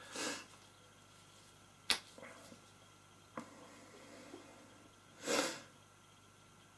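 Small handling sounds from silicone paint containers on a worktable: a sharp click about two seconds in and a fainter one a second and a half later, with a short hiss at the start and another about five seconds in.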